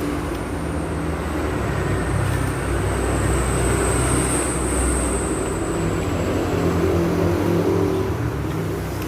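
Road traffic: motor vehicle engines running steadily, with a thin high whine that swells in the middle.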